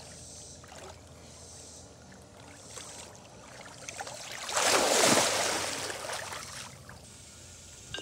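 Pool water splashing and sloshing, swelling to a loud rush about halfway through and dying away over a couple of seconds.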